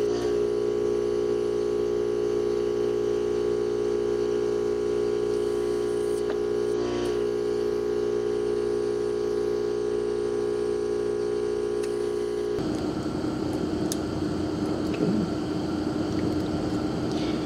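Vacuum pump of a desoldering station running with a steady electric hum, sucking solder off a dimmer switch's triac pins. The hum cuts off suddenly about twelve and a half seconds in.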